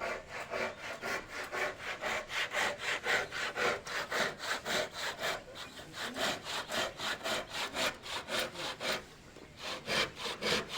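Hand saw cutting wood in quick, even back-and-forth strokes, about three a second, with a short pause about nine seconds in before the sawing resumes.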